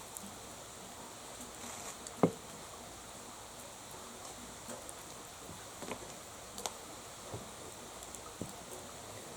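Wood bonfire crackling: a steady soft hiss with scattered sharp snaps and pops, the loudest a single pop about two seconds in.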